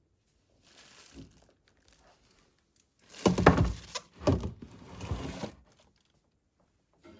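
Crinkling and rustling of something being handled, with soft thuds; the handling is faint about a second in and loudest between about three and five and a half seconds in.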